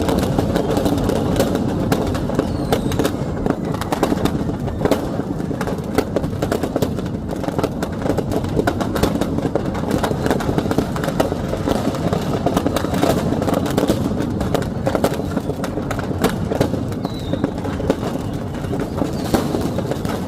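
Fireworks going off: a dense, continuous stream of crackling pops over a steady rumble, with a few faint short whistles.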